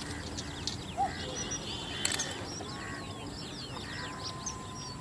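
Many small birds chirping and twittering in quick, short calls, with one brief sharp click about two seconds in.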